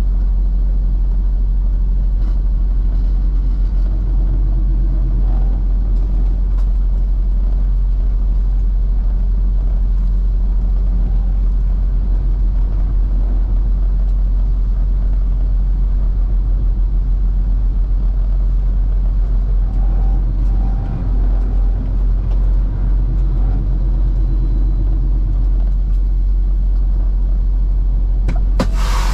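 Semi truck driving at road speed: a steady low engine drone with road noise, with a brief small dip in level about three quarters of the way through.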